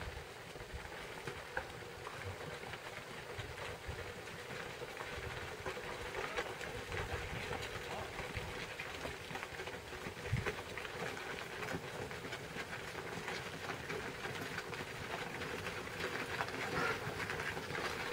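Many hooves of a cattle herd and horses clattering and crunching on a gravel road, a continuous patter of overlapping steps.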